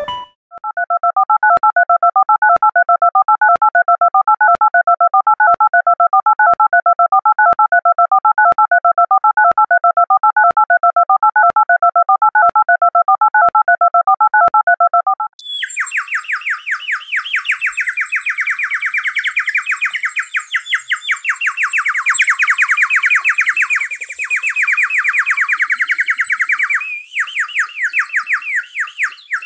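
Loud synthetic electronic tones: first a steady two-pitch warbling beep, then, about halfway through, an abrupt switch to a harsh, rapidly pulsing electronic buzz.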